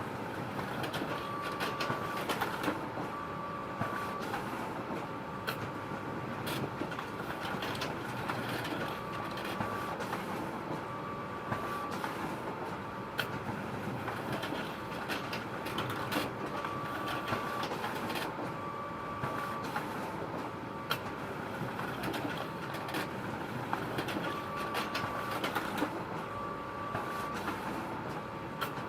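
Photocopier running: a steady mechanical whir with scattered sharp clicks and a short higher whine that comes and goes every few seconds.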